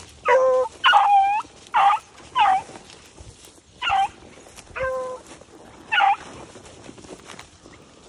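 Hunting beagles baying on a trail: about seven short bawls and chops at two different pitches, the longest with a falling tail, the last a little after six seconds in.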